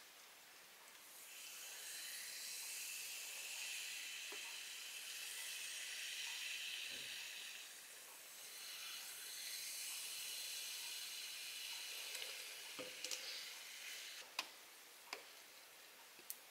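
Sprite poured from a plastic bottle into plastic popsicle molds, fizzing as it fills them: a faint, steady hiss that dips briefly about eight seconds in. A few sharp clicks come near the end.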